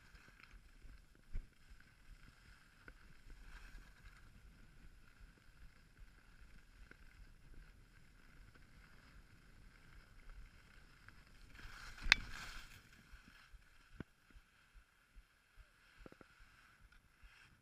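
Skis sliding and scraping over packed snow on a groomed piste, faint and muffled. A short, sharp, louder burst comes about twelve seconds in, and a few light clicks follow near the end.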